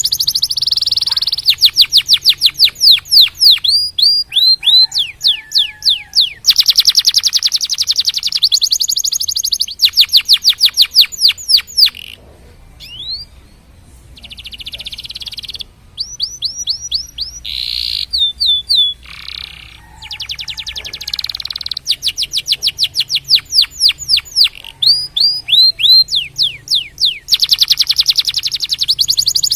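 Domestic canary singing: fast trills of rapidly repeated high notes and rolls of quick downward-sweeping whistles, with a quieter, sparser stretch about halfway through.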